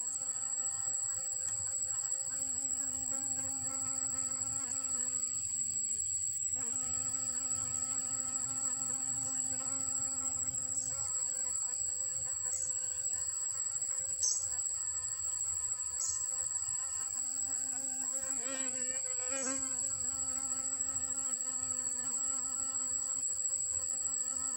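Honeybees buzzing steadily in flight around a flower spike, a droning hum that dips in pitch and breaks off briefly about six seconds in, then wavers again near the end. A constant high-pitched whine runs underneath.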